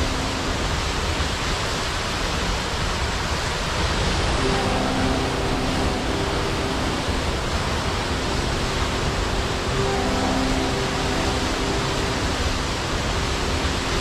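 Steady rushing roar of a waterfall, even and unbroken. Faint held musical tones come and go underneath.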